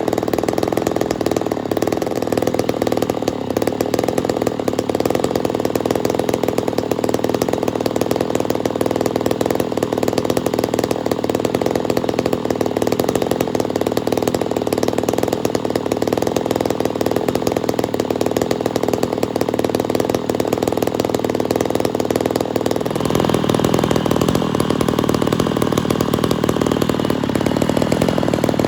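Poulan 245A two-stroke chainsaw with a freshly ported cylinder, running steadily; near the end its sound turns brighter and a little louder.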